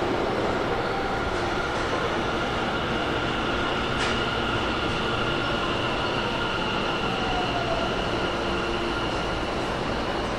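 Electric subway train at an underground station platform: a steady rumble with a few steady whining tones from the train's equipment, and a single sharp click about four seconds in.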